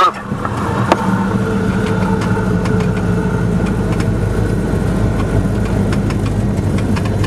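Cessna 172's piston engine and propeller running steadily, heard from inside the cockpit as the plane rolls along the runway, with a sharp click about a second in.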